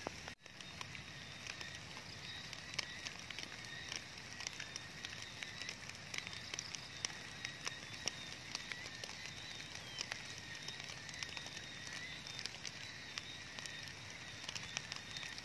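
Light rain or drops of water pattering on leaves: a faint, irregular crackle of small ticks over a soft hiss, with a faint high steady tone behind it. The sound cuts out for a moment near the start.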